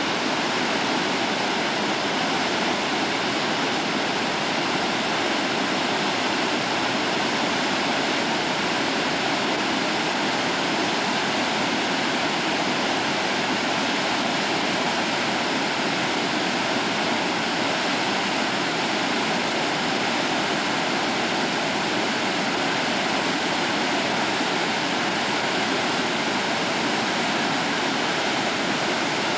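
Brown floodwater of a large river rushing through rocky rapids, a steady, unbroken roar of white water.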